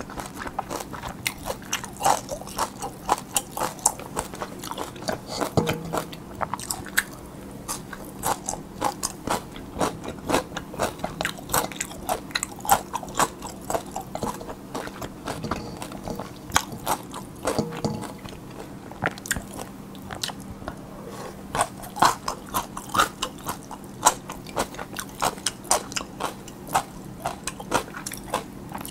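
Close-miked eating of cold spicy yeolmu bibim-guksu noodles: steady chewing and crunching, with a constant stream of quick wet mouth clicks.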